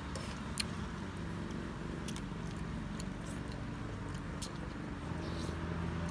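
Scattered sharp clicks of spoons and chopsticks against noodle bowls while people eat, with some chewing, over a steady low background hum.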